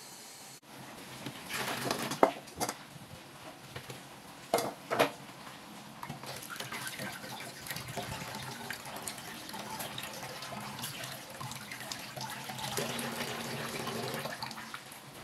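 Kitchen tap running water over boiled pitha rolls in a plastic colander held over a steel sink. A few sharp knocks sound in the first five seconds, and the steady splashing of water follows.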